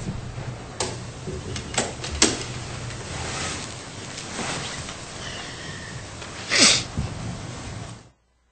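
Meeting-room handling noise: scattered small clicks and knocks, with a brief louder noise about two-thirds of the way through. The sound cuts out abruptly near the end.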